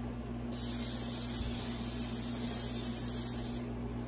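Aerosol cooking-oil spray hissing in one long spray of about three seconds, greasing a casserole dish. It starts about half a second in and cuts off near the end.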